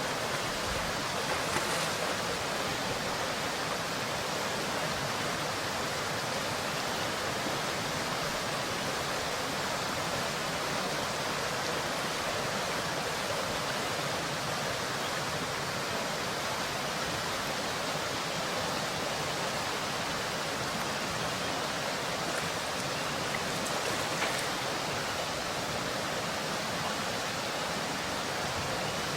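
Flowing river water, a steady even rush with no change through the whole stretch.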